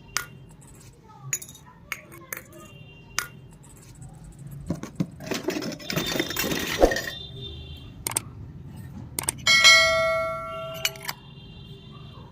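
Small miniature toy kitchen pieces being handled: sharp clicks and taps, a stretch of rustling packaging midway, then one small metal piece rings out briefly about three-quarters of the way through.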